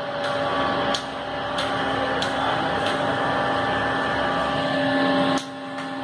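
Steady whirring hum of a small electric fan motor, with a few light clicks from the phone being handled.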